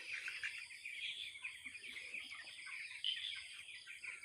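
A flock of two-week-old broiler chicks peeping: many short, high chirps overlapping in a steady chorus.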